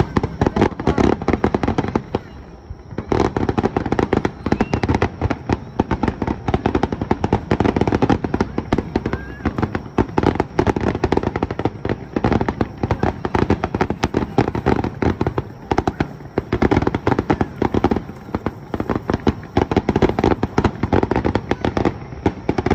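Fireworks display: a rapid barrage of aerial shell bursts, many bangs a second, with a short lull about two seconds in before the firing resumes.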